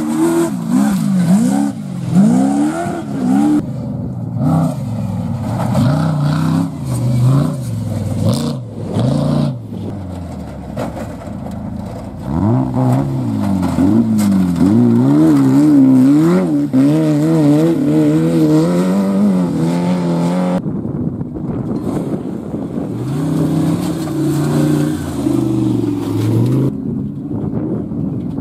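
Off-road race vehicles, a trophy truck and a VW Beetle-bodied racer among them, revving hard as they drive past one after another. The engine pitch climbs and falls with each throttle change. The sound breaks off abruptly twice in the latter part.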